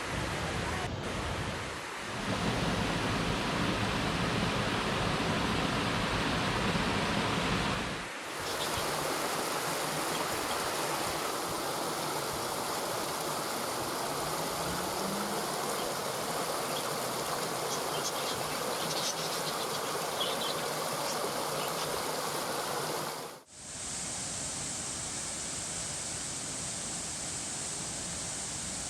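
Waterfall: a steady rush of falling water that changes abruptly in tone three times, at about 2, 8 and 23 seconds in.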